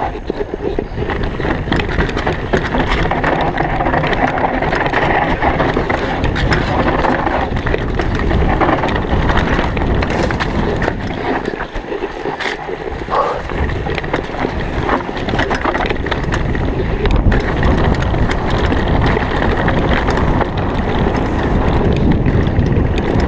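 Santa Cruz V10 downhill mountain bike descending a rough dirt trail: tyres rolling over dirt and dry leaves, the frame and parts rattling and clattering with many sharp knocks, over a steady rush of wind.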